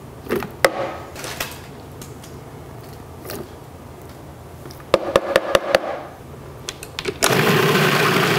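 Roasted vegetable pieces knocked off a spatula into a plastic food processor bowl, then a quick run of sharp plastic clicks as the lid and pusher are fitted. About a second before the end, the Cuisinart food processor's motor starts and runs steadily, pureeing the vegetables.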